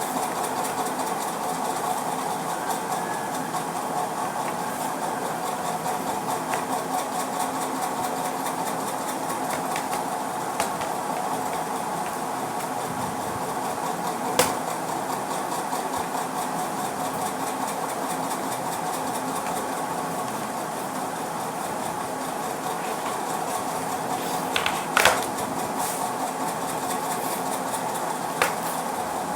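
A steady mechanical hum, with a few sharp clicks and knocks from plastic laptop parts as the back panel is fitted back on.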